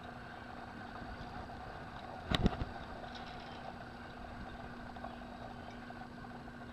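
A steady mechanical hum, like a distant motor running, with one short sharp sound about two and a half seconds in.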